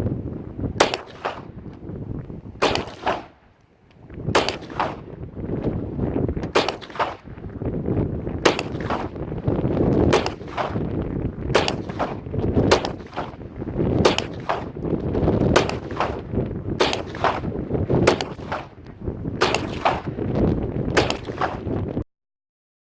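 TNW Aero Survival Rifle, a semi-automatic .40-calibre carbine, firing a steady string of about two dozen shots of powder-coated cast lead bullets, often in quick pairs, roughly one shot a second. The sound cuts off abruptly near the end.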